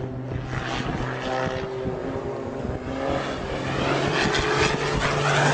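Small propeller plane's engine droning steadily as the plane comes down in a steep dive, growing louder toward the end.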